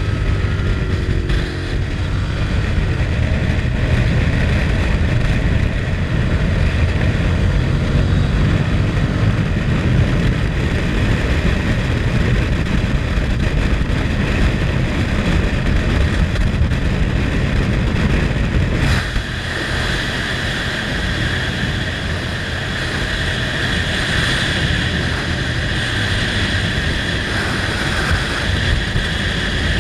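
Motorcycle engine running at road speed, with wind rushing over the bike-mounted camera's microphone. About 19 seconds in the sound changes abruptly to a brighter, steadier hiss with a faint whine.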